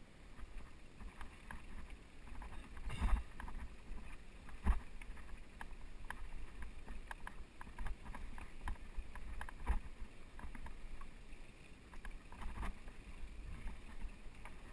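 Mountain bike rolling fast over rocky dirt singletrack: tyres crunching on dirt and stones, with constant rattling and clicking from the bike and a few louder knocks as the wheels strike rocks, over a steady low rumble.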